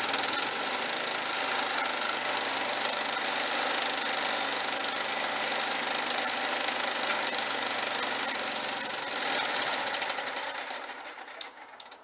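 John Deere STX30 lawn tractor's small gasoline engine running at a steady speed, then dying away near the end as it is shut off.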